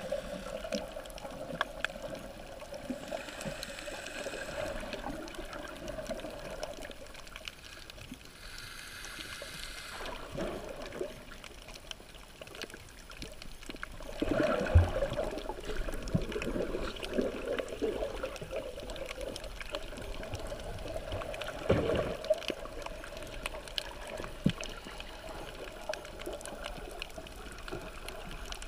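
Moving water and gurgling picked up by a camera held underwater, with two hissy stretches early on and a few sharp knocks, the loudest about halfway and about three-quarters of the way in.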